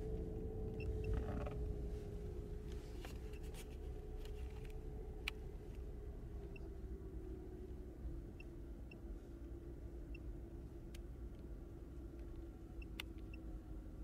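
Car engine running with a low rumble, its steady hum slowly dropping in pitch while the overall level eases down a little. Faint clicks and a few short, high chirps sit over it.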